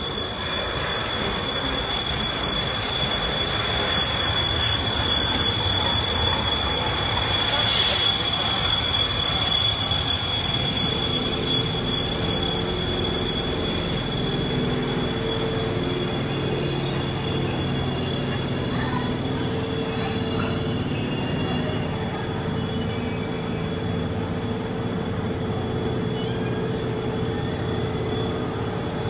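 Chichibu Railway's C58 steam locomotive and its passenger coaches arriving slowly at a station platform: a steady high brake squeal throughout, a brief loud hiss about eight seconds in, and the low rumble of the coaches rolling past.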